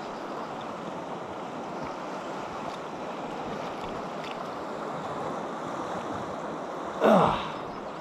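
Steady rushing of a mountain river's flowing water. About seven seconds in, one brief loud sound falls in pitch and is over in under half a second.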